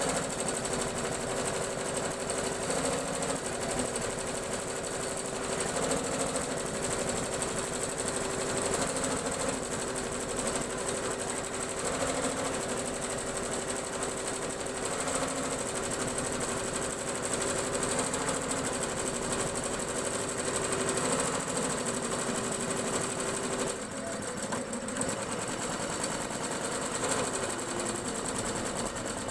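HSW single-head 12-needle computerized embroidery machine stitching: the needle bar hammers rapidly and the motor hums steadily, with its pitch stepping slightly as the frame moves. It goes briefly quieter about four-fifths of the way through.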